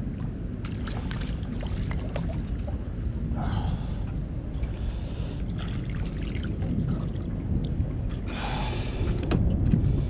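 Water splashing and trickling around a hooked bream as it is brought in, with scattered small clicks over a steady low rumble of wind.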